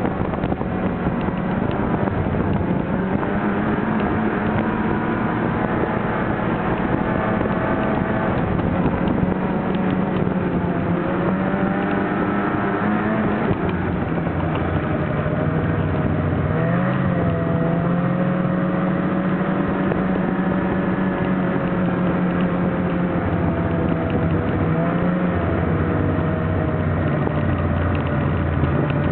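Snowmobile engine running steadily at speed, its pitch dipping and recovering a couple of times as the throttle eases and opens again.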